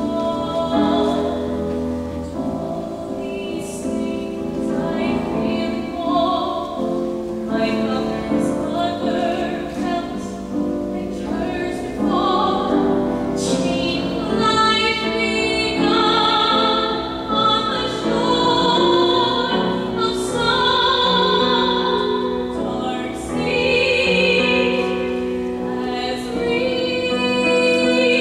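A woman singing solo in a classical, operatic voice, holding long notes with vibrato, over piano accompaniment.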